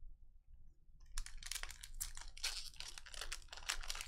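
A foil trading-card pack, Donruss Optic basketball, being torn open by hand. Its wrapper crinkles and crackles rapidly, starting about a second in.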